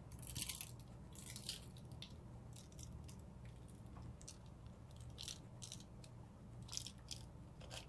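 A spice shaker of seasoned pepper being shaken: faint, short dry rattling shakes of granules, coming in irregular bunches.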